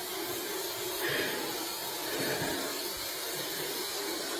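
Steady, even hiss with no distinct sound standing out of it.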